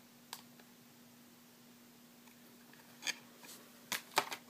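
Faint clicks and crinkles of a small clear plastic packet being handled. Near the end comes a quick cluster of sharper clicks as it is set down.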